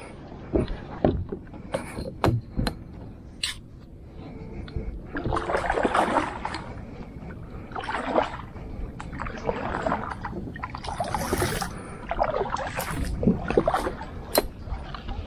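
Kayak paddling: paddle strokes swishing and splashing through the water about every one to two seconds, with a few sharp knocks in the first few seconds.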